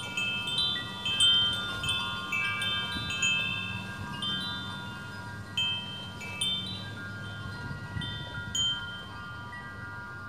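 Wind chimes ringing, struck at irregular moments, several times a second in the first few seconds and more sparsely after. Each bell-like tone rings on for a few seconds and overlaps the next.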